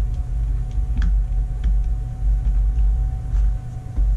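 Steady low rumble with a faint steady hum, and a few faint light clicks about a second in and again shortly after as small parts of a revolver's grip are handled.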